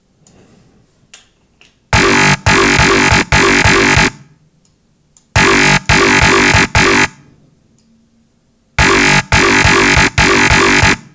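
Growly, evil-sounding bass patch from the Massive software synthesizer playing the same short riff three times, each pass about two seconds of choppy stuttering notes with short pauses between. The sound runs through an EQ Eight that boosts the sub bass and mids and cuts the middle bass around 300 Hz.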